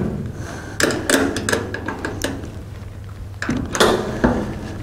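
Irregular metallic clicks and clatter from a cordless drill and wrench working a bolt on a sheet-metal nest box, with a louder knock about three and a half seconds in.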